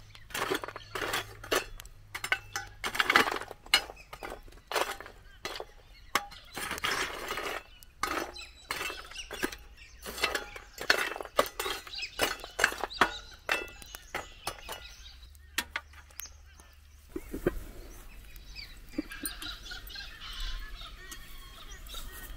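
Folding shovel scraping and digging through charcoal embers in a steel fire-pit bowl, the coals crunching and clinking in a quick, irregular string of scrapes and knocks, thinning out and quieter for the last several seconds.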